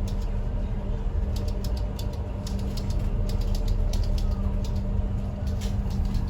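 River ferry's engines running with a steady low rumble and a constant hum, with many light clicks and creaks of the boat's fittings scattered throughout.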